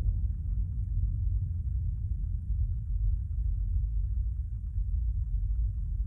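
Low, steady rumble inside a stationary car's cabin, with no clear pitch and a slight constant waver.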